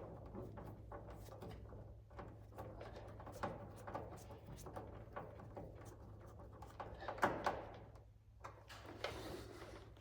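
Scattered small clicks and knocks of parts and hand tools being handled during fitting work, with one louder knock about seven seconds in, over a low steady hum.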